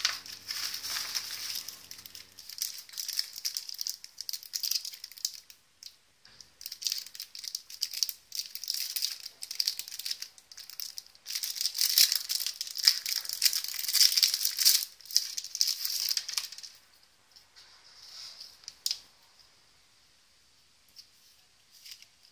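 Plastic packaging rustling and crinkling as a padded bubble mailer is opened and a paint pen is pulled out of its small plastic bag, in irregular bursts that thin out about 17 seconds in. A few faint clicks near the end.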